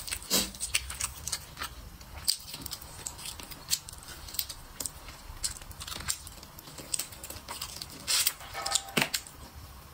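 Close-miked chewing and lip smacking as meat is bitten and gnawed off a bone: a string of irregular wet clicks and smacks.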